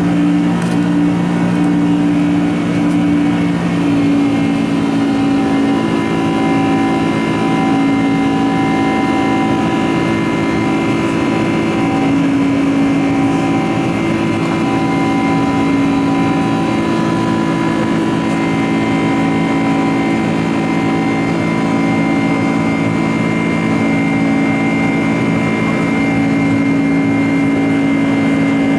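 Boeing 747-400's turbofan engines running at high thrust, heard from inside the passenger cabin: a steady loud roar with several held whining tones, the lower ones shifting in pitch about four seconds in.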